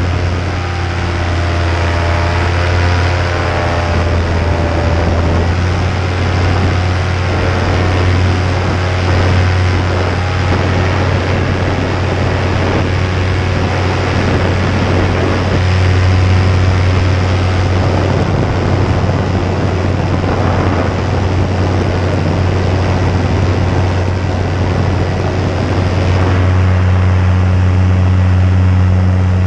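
Paramotor engine and propeller running steadily in flight, a continuous low drone under rushing noise, rising slightly in pitch and loudness near the end.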